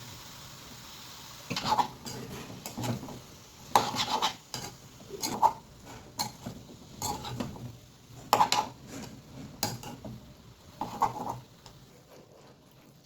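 A metal spoon clattering and scraping against a cooking pan in a string of irregular strokes, after a steady hiss in the first second or so.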